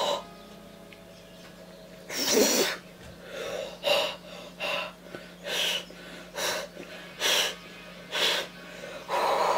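A person breathing hard in and out through an open mouth, a string of short, loud breaths less than a second apart after a longer one about two seconds in, reacting to cayenne pepper burning the mouth and nose.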